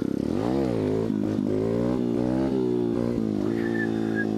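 125cc dirt bike engine under throttle, rising sharply in pitch in the first second and dropping back, then swelling and falling several more times as the rider works the throttle.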